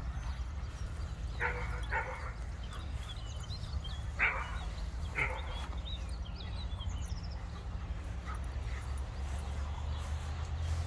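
Kuvasz dogs barking while they play: four short barks, two about a second and a half in and two more around four to five seconds in.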